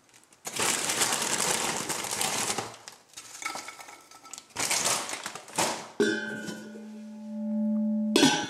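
Cheetos Giants cheese puffs shaken out of a crinkling plastic snack bag and clattering onto a ceramic plate, one long pour followed by several shorter shakes. About six seconds in a steady held tone of several pitches starts and swells, cut off by a short sharp noise near the end.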